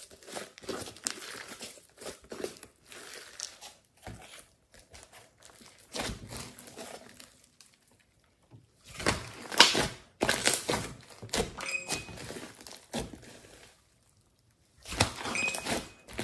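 Hands squeezing, stretching and poking a thick slime mixed with clay, giving irregular crackling, squishing sounds, with two brief pauses.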